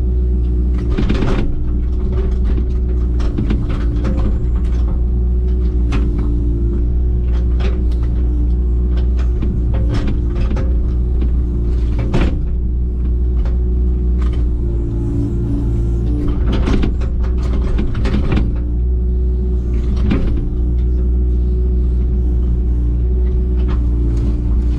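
Digger's diesel engine running steadily at an even pitch, with scattered sharp metal clanks and knocks.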